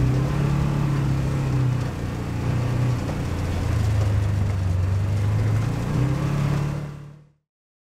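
Side-by-side UTV engine running while driving through snow, heard from inside the cab. The engine note drops about two seconds in, runs lower through the middle and climbs again near the end, then cuts off suddenly.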